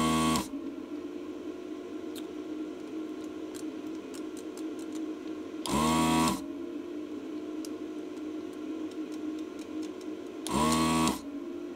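Desoldering gun's vacuum pump whirring in three short bursts, each under a second: one at the start, one about six seconds in, one near the end. It is sucking molten solder from the pins of a transformer on a circuit board. A steady low hum runs between the bursts.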